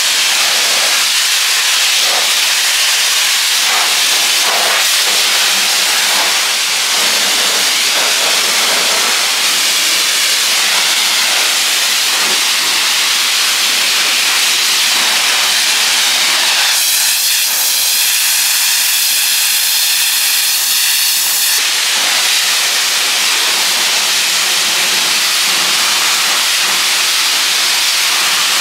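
Car wash water spray hissing steadily against the car. About seventeen seconds in, the spray changes character for some five seconds, with a faint steady tone in it, then returns to the plain hiss.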